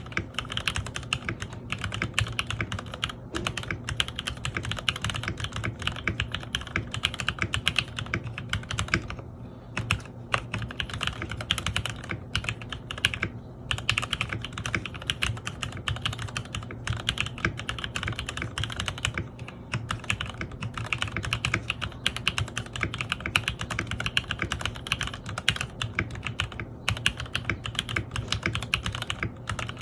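Continuous fast typing on a mechanical keyboard with linear Gateron Pro Milky Yellow switches and Cherry-profile keycaps, keys struck fairly hard, with a brief pause about nine seconds in.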